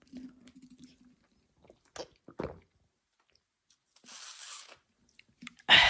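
Balisong trainers being handled between knives: a couple of sharp clicks about two seconds in, a short rustling hiss past the middle, and a louder noisy clatter near the end.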